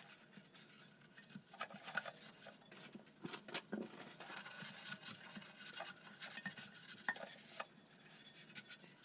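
Faint, scattered clicks, taps and light scrapes of hard plastic parts being handled against an empty porcelain toilet tank.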